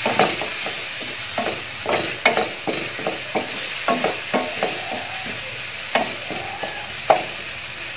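Chopped tomatoes and onion masala sizzling in oil in a pan while a spatula stirs them, with repeated scraping strokes against the pan about once or twice a second. The tomatoes have just gone in and are frying down so they soften and break up.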